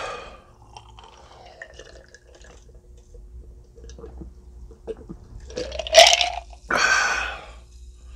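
Someone drinking iced cola. There are small clicks at first, then a loud gulp about six seconds in, followed by a breathy exhale.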